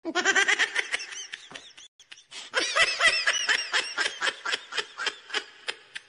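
High-pitched laughter dubbed onto a meme, quick pulses of laughs about five a second. A short break comes about two seconds in, then a second run that fades out near the end.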